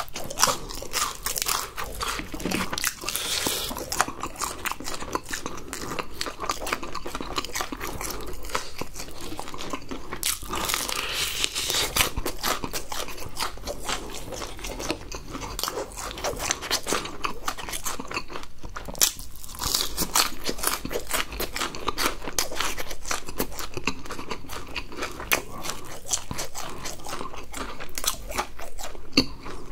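Close-miked eating of crispy fried chicken: the batter crunching and crackling with each bite, and chewing going on without a break.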